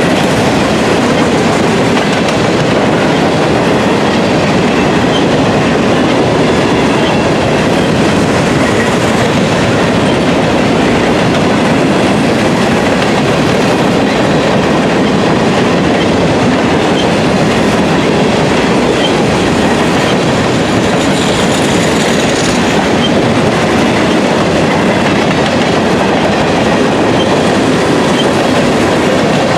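Cars of a freight grain train rolling past at close range: steel wheels running on the rails make a loud, steady noise.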